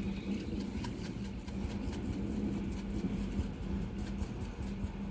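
A steady low mechanical hum, with scattered faint clicks over it.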